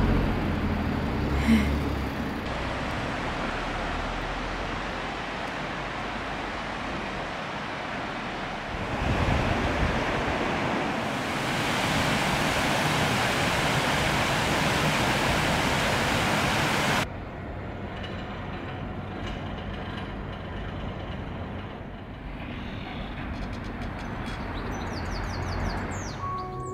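Outdoor town ambience: a steady wash of noise that changes level abruptly a few times, with a few light clicks near the end.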